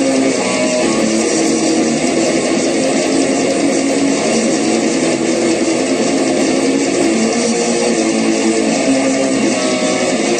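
Guitar music playing continuously at an even level.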